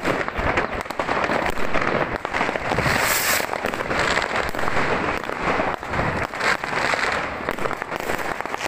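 Many fireworks and firecrackers going off at once: a continuous barrage of overlapping bangs and crackling.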